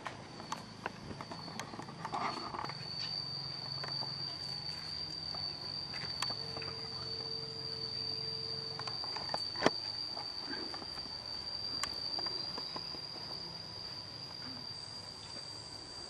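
Insects droning in one steady, high-pitched note, with scattered light clicks and taps; one sharper click about ten seconds in.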